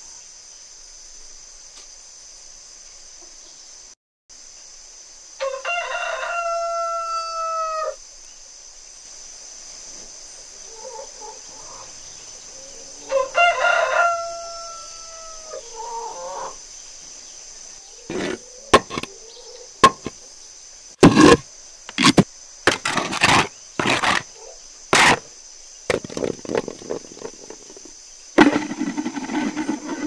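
A rooster crowing twice, each crow ending in a long held note that sags in pitch, then a rapid run of short sharp clucks and squawks from chickens, over a steady high hiss.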